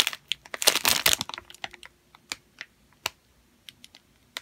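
Clear plastic packaging bag of a squishy toy crinkling as it is handled and squeezed: a quick run of crackles in the first second or so, then scattered single clicks.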